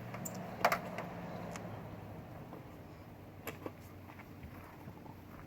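A few sharp clicks and clinks of tie-down strap hooks and buckles being handled, the loudest about half a second in and two more close together past the middle, over a faint steady low hum.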